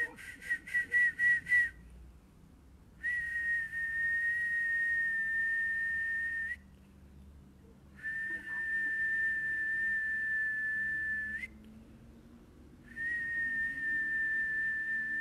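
A person whistling one high note: a quick run of about seven short pips, then three long held notes of about three and a half seconds each, separated by short breaths, each ending with a slight upward flick.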